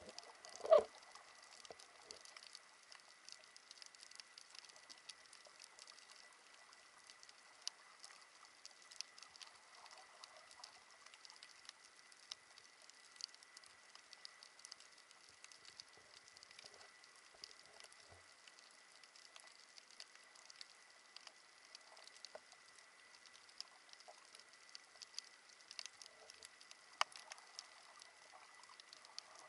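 Faint underwater coral-reef crackle: a dense stream of tiny clicks typical of snapping shrimp, over a steady thin high tone. One sharp knock stands out about a second in, and another click comes near the end.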